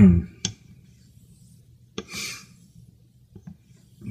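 A wedge-ground straight razor being honed on a wet Shapton Pro waterstone: a short scraping hiss about two seconds in as the blade is drawn across the stone, with a few light clicks of the blade against the stone.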